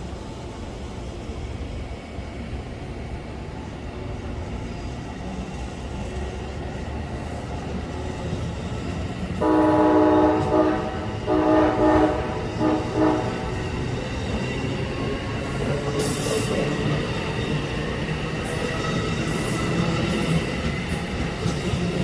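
Passenger train approaching, its rumble growing louder, sounding its horn in three blasts about ten seconds in, the last one shortest. High-pitched wheel squeal follows as it comes closer.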